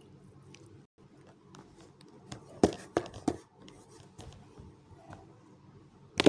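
Handling noises: sharp clicks and taps, three close together a little after halfway and a louder one at the very end, over a low steady hum.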